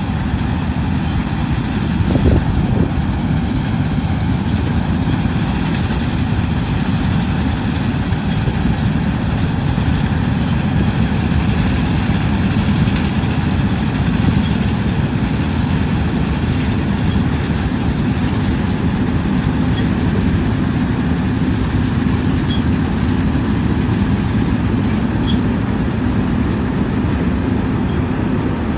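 John Deere combine running steadily while harvesting wheat, a constant low machine noise.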